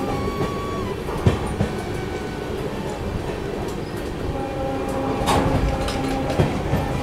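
Passenger train coach running along the track, heard from the open doorway: a steady rumble of wheels on rail with a faint steady drone. Sharp clacks over the rail joints come about a second in and again around five and six seconds in. A faint whine drops in pitch and fades about a second in.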